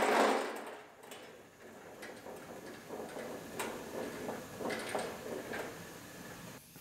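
A noisy clatter dying away over the first second, then scattered light clicks and taps of hand-tool work on the car.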